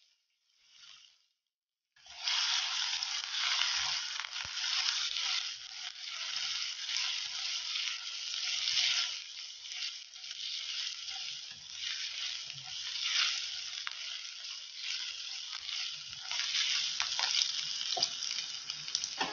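Chopped ginger sizzling in hot oil in a nonstick frying pan, stirred now and then with a wooden spatula. The steady sizzle starts suddenly about two seconds in.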